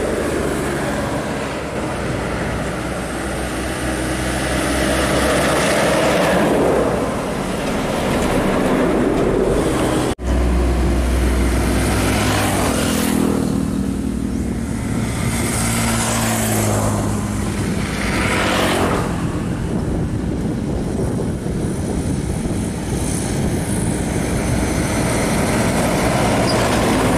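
Heavy diesel trucks passing close by on a road, their engines running with tyre and road noise that swells and fades as each goes past. There is an abrupt cut about ten seconds in.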